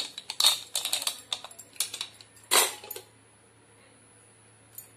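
Aluminium pressure cooker lid being worked loose and lifted off, metal clicking and scraping against the pot rim. A louder metal clatter comes about two and a half seconds in as the lid is put down, and then it goes quiet.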